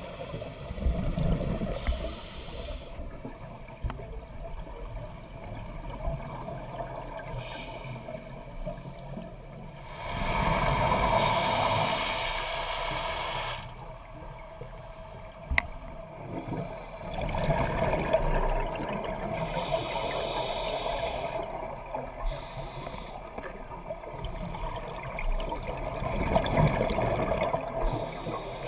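Scuba diver breathing through a regulator underwater: quieter stretches of inhaling, then long bubbling exhalations every seven or eight seconds.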